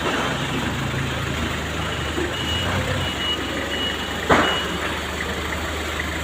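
A vehicle's engine running steadily while its reversing alarm sounds a row of short high beeps through the middle, with one sharp knock a little past four seconds in.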